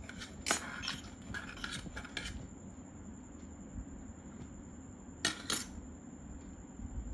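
Spoon clinking and scraping against a bowl while stirring glue and food colouring into slime, with a run of quick clinks in the first two seconds or so and two more a little past five seconds.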